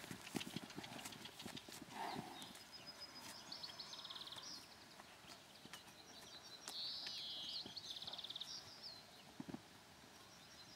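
Horses walking on dry paddock grass, their hooves giving soft, irregular thuds, most of them in the first few seconds and a few more near the end.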